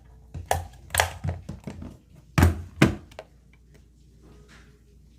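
A quick run of handling knocks and thunks on a hard surface, in a small room. The two loudest come close together about two and a half seconds in.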